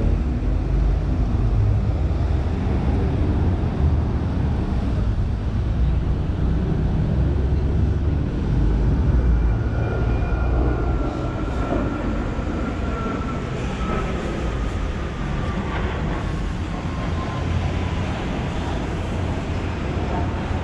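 Ottobock B500 electric wheelchair rolling along a paved path: a steady low rumble from its tyres and drive.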